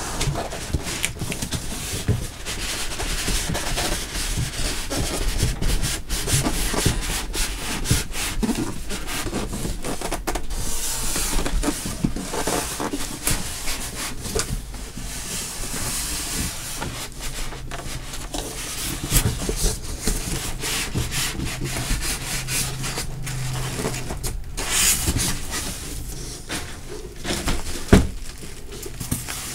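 Cardboard shipping box being handled and opened: cardboard rubbing and scraping, with the rustle of packing and scattered knocks and clicks. A sharp knock comes near the end.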